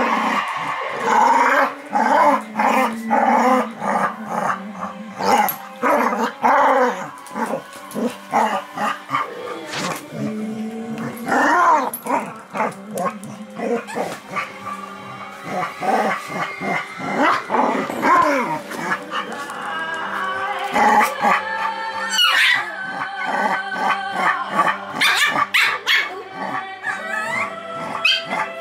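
Two dogs play-fighting, with repeated growls, yips and barks coming in short irregular bursts throughout.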